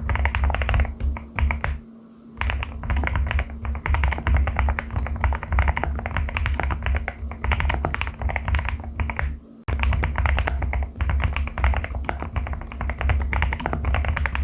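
Fast typing on a Qwertykeys QK75 custom mechanical keyboard fitted with Haimu Crystal Blossom switches: a dense run of keystrokes that pauses briefly about two seconds in and again near ten seconds.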